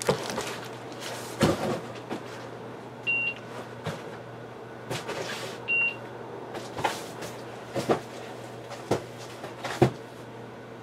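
Room sounds with a steady low hum, scattered knocks and clatters, and two short high beeps a few seconds apart.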